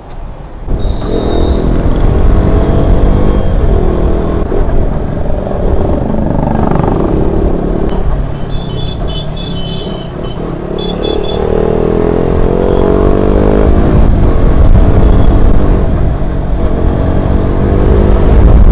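KTM RC 200's single-cylinder engine pulling away and accelerating through the gears. Its pitch climbs several times as it revs up and shifts, over a low rumble of wind and road noise. About halfway through there is a run of short high-pitched beeps.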